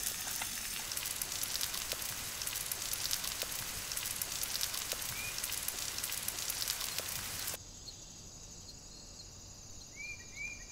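Salmon fillet sizzling on a hot salt block over charcoal: a steady crackling hiss with small pops. About 7.5 seconds in it cuts to a quieter sizzle as the fillet is turned with tongs, and a bird chirps several times near the end.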